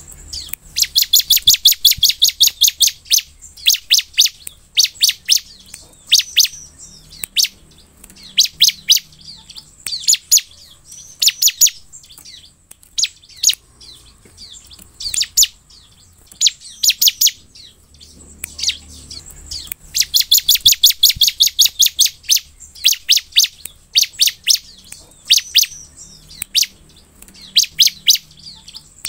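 Bar-winged prinia (ciblek) singing energetically: bursts of loud, high, rapidly repeated chirping notes. A long fast run opens the song and another comes near the middle, with shorter phrases of a few notes in between.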